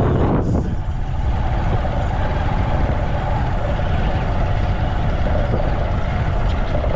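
Steady engine rumble and running noise of a motor vehicle on the move, with a constant hum over it.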